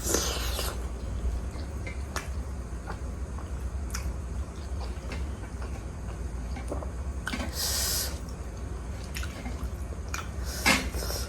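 Close-up wet mouth sounds of eating juicy pork momo dumplings: soft chewing and small clicks, with three short slurps, at the start, in the middle and near the end.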